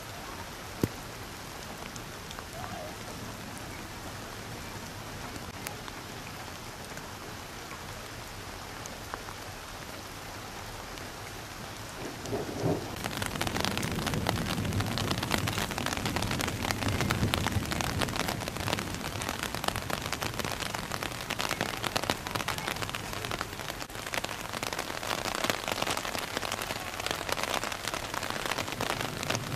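Heavy rain falling in a steady hiss. About 13 seconds in it turns louder and denser, a close crackling patter, and a low rumble runs for a few seconds just after.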